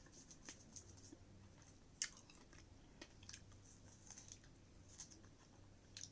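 Faint, close chewing of salted fresh strawberries: soft, irregular wet mouth clicks and smacks.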